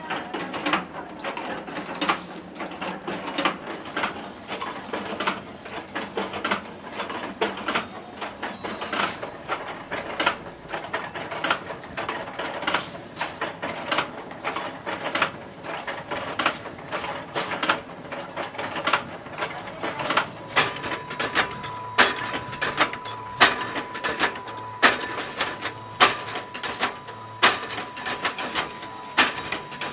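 Automatic chain-making machinery running, with a rapid, regular metallic clacking as the links are worked. A steady high whine joins about two-thirds of the way in.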